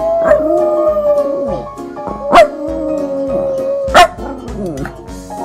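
A dog howling in two long, slightly falling calls, with a sharp yelp at the start of the second call and another as it ends, over background music with a steady beat.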